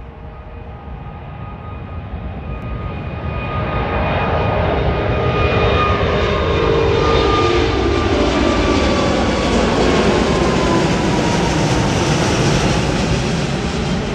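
Airbus A380's four Rolls-Royce Trent 900 jet engines at takeoff thrust as the airliner climbs out overhead. The noise grows louder over the first six seconds and holds loud, with whining tones that slide down in pitch as the aircraft passes and climbs away.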